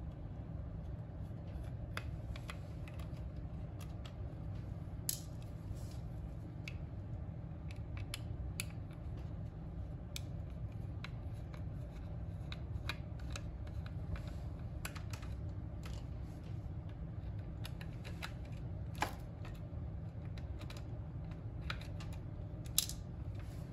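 Small screwdriver ticking and scraping in the screws of a plastic pocket multimeter's back case, with scattered clicks of the plastic case being handled; a few louder clicks stand out. A steady low hum runs underneath.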